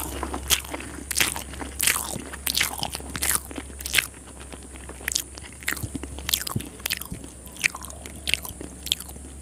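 Close-miked chewing of a mouthful of chicken biryani: wet smacking and crunching mouth sounds, many short sharp clicks that come thick at first and thin out toward the end, over a steady low hum.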